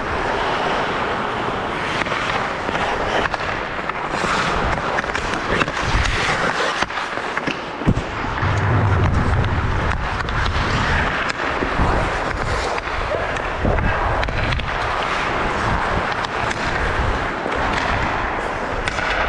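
Ice hockey skates scraping and carving on the ice during play, with sharp clacks of sticks and puck here and there, the loudest about eight seconds in.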